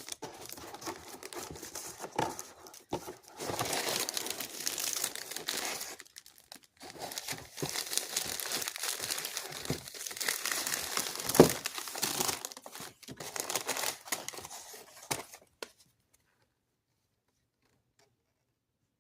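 Plastic packaging crinkling and rustling, with some tearing, as a handheld vacuum is unwrapped. There is one sharp loud snap about eleven seconds in, and the handling stops a few seconds before the end.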